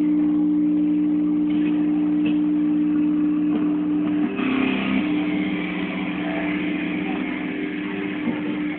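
A car engine running at a steady speed, its note shifting about halfway through and cutting off suddenly at the end.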